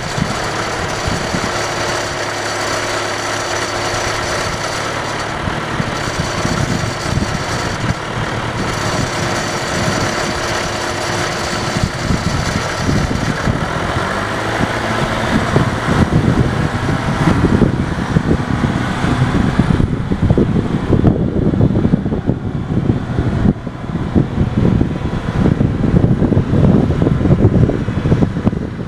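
John Deere 310A backhoe loader's diesel engine running at idle. In the second half the sound turns rougher and more uneven.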